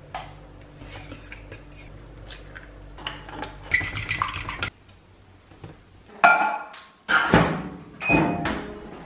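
Kitchen utensil clatter. A few light clicks of a scoop against a stainless-steel pot come first. Then a fork rapidly beats egg against a ceramic bowl in a quick run of strokes, and near the end there are a few louder clanks with short ringing tones.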